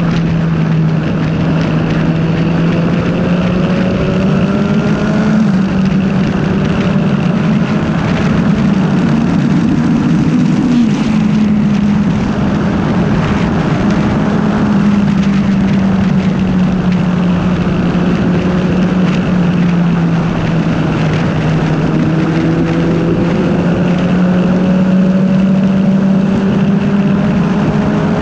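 Motorcycle engine running steadily at road speed, its note drifting slowly up and down with a few gentle rises in revs, under heavy wind rush on the microphone.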